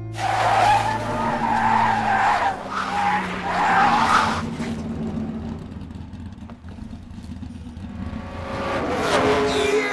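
Race-car sound effects from an animated film: tyres squealing and skidding over engine noise. The noise is loudest for the first four seconds or so, eases off, then builds again near the end.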